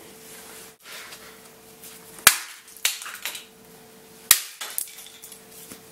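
A plastic smoke alarm being smashed: hard blows about two seconds in and again about two seconds later, with lighter knocks and clatter between and after them.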